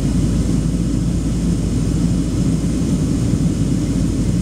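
Steady low rumble inside the cabin of a Boeing 737-800, from its CFM56-7B engines and the air rushing past the fuselage, heard at a window seat over the wing.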